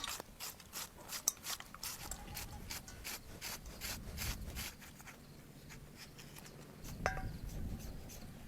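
A knife paring vegetables: quick rasping strokes, about four a second, for the first five seconds, then fewer. A short ringing tone about seven seconds in.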